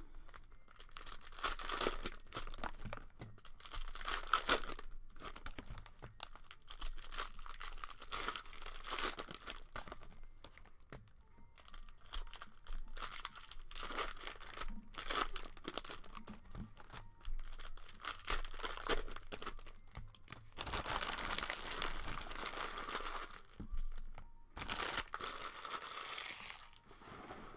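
Plastic cello trading-card pack wrappers being torn open and crinkled by hand, in irregular rustles with two longer stretches of crinkling near the end.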